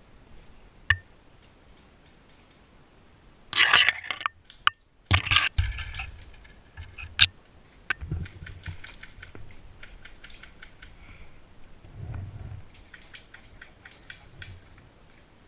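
Dry leaves and brush crunching and crackling underfoot and against the body as an airsoft player moves through bamboo undergrowth. The sound is irregular, with a few sharp clicks and a loud burst of crunching a few seconds in.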